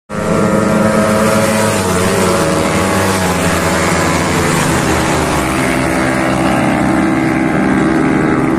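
A loud engine running steadily, its pitch shifting a little partway through.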